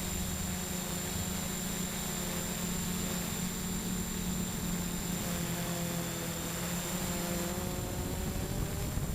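Storm 6 hexcopter's six electric motors and propellers running in flight, picked up by the camera on board: loud rotor noise, a steady hum with a thin high whine, its pitch shifting slightly partway through as the motors adjust.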